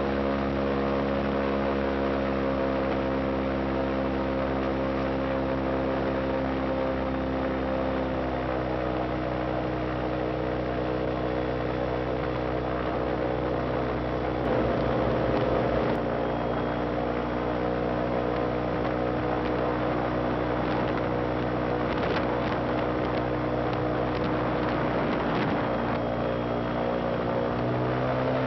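Airboat's engine and propeller running under way with a steady engine note. The pitch drops slightly about a third of the way in and rises again near the end.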